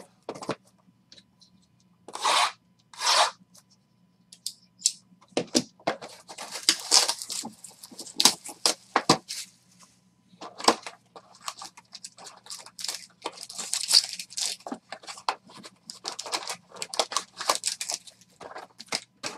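Trading card box and pack wrappers being torn open: two short rips a few seconds in, then a long run of crinkling, crackling tearing.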